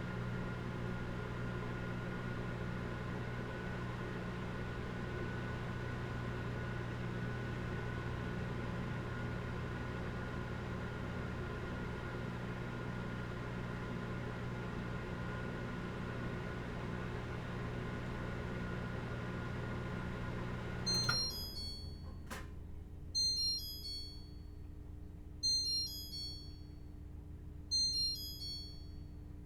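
Microwave oven running with a steady hum, which stops with a click about two-thirds of the way through. Its end-of-cycle beeper then sounds four times, short high beeps about two seconds apart, signalling that heating is done.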